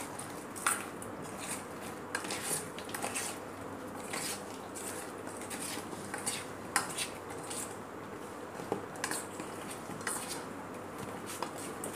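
A spoon clinking and scraping against a stainless steel bowl in irregular strokes as fried momos are tossed and coated in a thick marinade.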